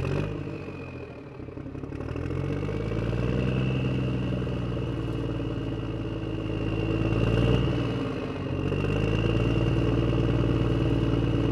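Truck engine running, revving up about two seconds in and holding at a higher speed. It eases off briefly around eight seconds before picking up again, with a steady high whine over it. A short knock sounds at the very start.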